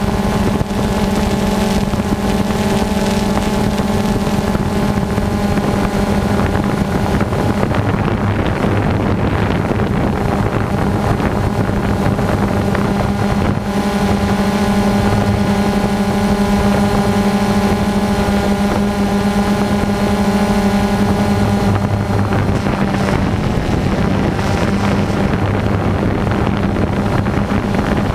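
Multirotor drone's electric motors and propellers running steadily, a loud whirring hum heard from the camera mounted on the drone, with wind rushing over the microphone.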